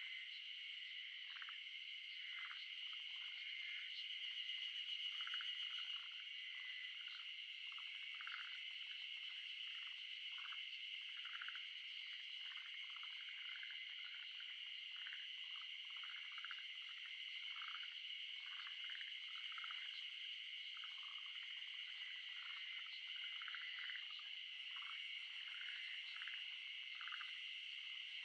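A dense chorus of small animal calls: a steady high trilling, with many short calls scattered over it.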